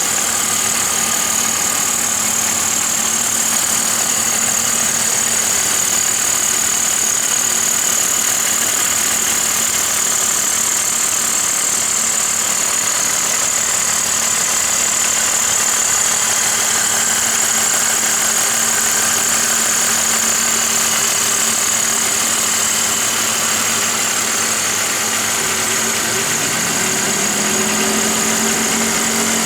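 BMW M54 3.0-litre inline-six engine running steadily at idle. Near the end a second tone rises in pitch.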